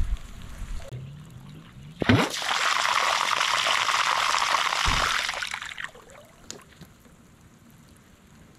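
Water pouring and splashing for about four seconds, starting suddenly about two seconds in and fading out.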